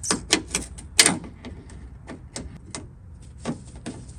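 Hand work inside a truck door as a lock cylinder is fitted: a string of sharp metal clicks and knocks, the loudest about a second in, then lighter ticks.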